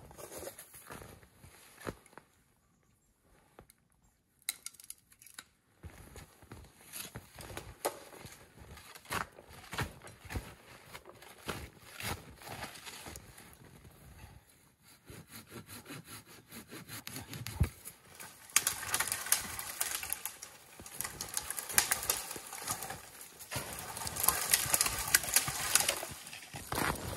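Boots crunching through deep snow, with twigs and branches rustling and snapping as someone pushes through brush. The sound is sparse near the start, with a quiet stretch a few seconds in, and turns into a dense, steady crunching in the last third.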